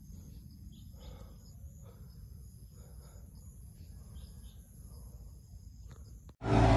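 Insects calling in steady, high-pitched tones over a low outdoor rumble. Near the end the sound cuts off abruptly and a much louder, dense noise takes over.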